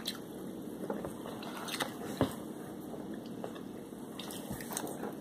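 Person biting into and chewing breaded fried shrimp close to the microphone: scattered short crunches and mouth sounds, the sharpest about two seconds in and a few more near the end.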